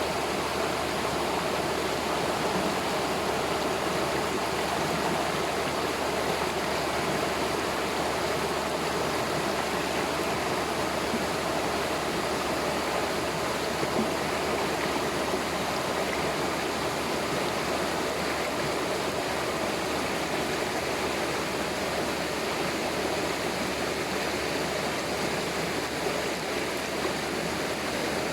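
Waterfall and stream water rushing over rocks, a steady, even roar of falling water.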